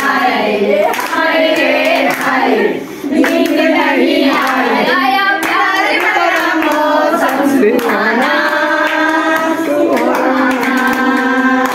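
Group of women singing a song together, with hands clapping along.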